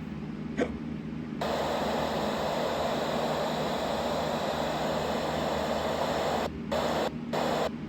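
Weather radio's speaker hissing with static while tuned to a weather band channel before the broadcast comes in. A short click comes about half a second in, the hiss gets louder about a second and a half in, and it cuts out briefly several times near the end.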